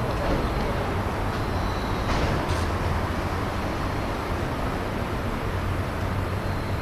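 Steady outdoor background noise with a low hum, and a couple of faint taps about two seconds in.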